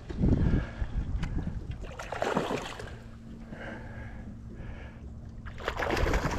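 A hooked fish splashing at the water's surface in three bursts as it is played toward the dock, over a low wind rumble on the microphone.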